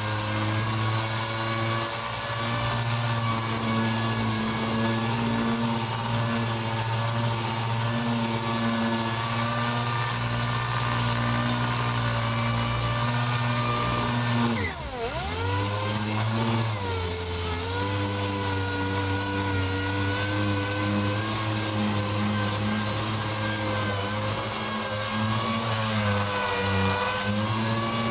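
Pneumatic random orbital sander running steadily as it dry-sands body filler on a car panel, a constant whine with the pad scuffing over the filler. About halfway through the whine dips sharply in pitch and then recovers.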